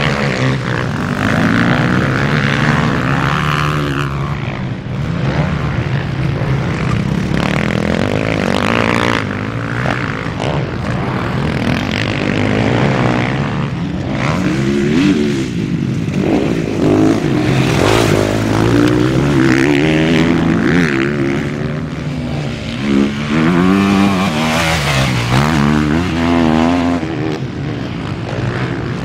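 Motocross bike engines revving hard and easing off again and again as the bikes ride the dirt track, the pitch rising and falling with the throttle.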